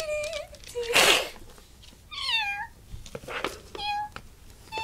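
A child meowing like a cat to voice a cat-girl doll: several short meows, one falling clearly in pitch about two seconds in, with a loud breathy noise about a second in.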